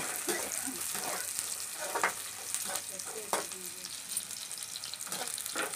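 Onions, garlic and dried red chillies sizzling in hot oil in a metal kadhai, with a steel ladle scraping and clinking against the pan as they are stirred.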